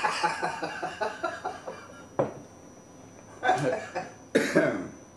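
A man laughing in quick, rapid pulses that trail off, followed by three short coughs.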